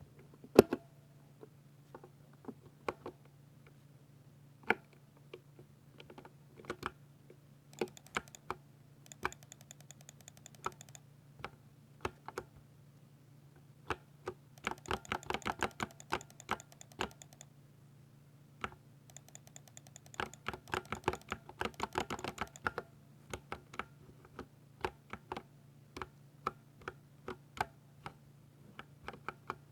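Typing on a Ducky 60% mechanical keyboard with silver linear switches: scattered single keystrokes broken by three quick runs of rapid typing, over a faint steady low hum.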